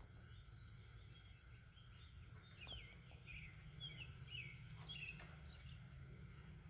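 Faint birdsong: a run of short chirps from about two and a half to five and a half seconds in, over a steady low background rumble.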